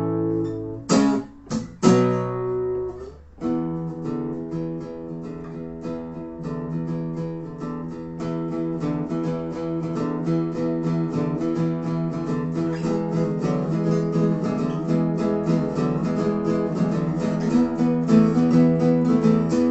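Acoustic guitars playing an instrumental passage: a few short strummed chord stabs with brief breaks near the start, then steady strumming and picking.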